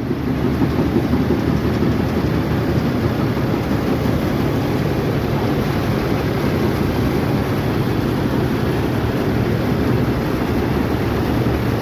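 Rice harvesting machine running steadily, a loud even rumbling drone.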